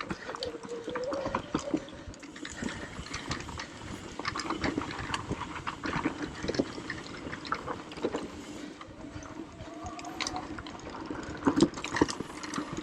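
Mountain bike rolling down a loose dirt trail: tyres crunching over dirt and rocks, with a steady stream of clicks and knocks from the bike rattling over rough ground.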